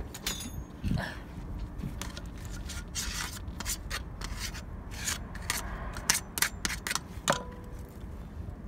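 Pliers and a steel pick clicking and scraping against the metal wheel hub of an Isuzu FS truck: a run of sharp, irregular clicks, with one that rings briefly near the end.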